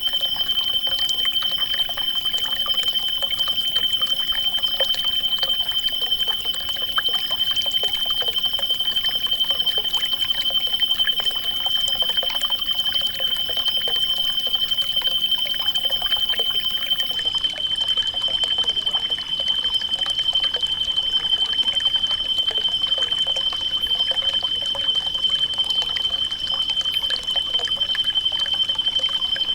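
Water trickling and pouring steadily, with many small splashes, under one unbroken high-pitched tone.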